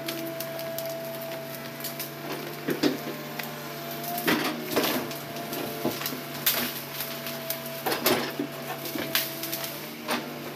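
Hitachi hydraulic excavator running with a steady engine drone as it swings and moves, with several sharp clanks and cracks scattered through, the loudest about four and eight seconds in.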